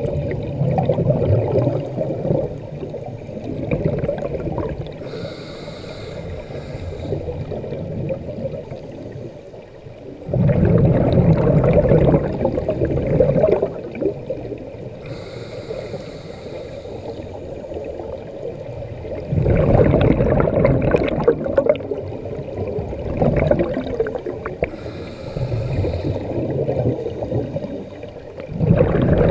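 Scuba diver breathing through a regulator underwater: a short hiss on each inhale, then a loud gurgling rush of exhaled bubbles, repeating about every nine or ten seconds.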